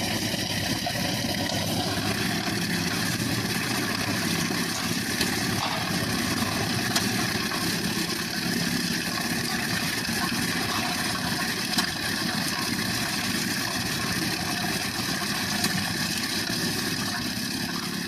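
An engine running steadily, with a few brief sharp knocks.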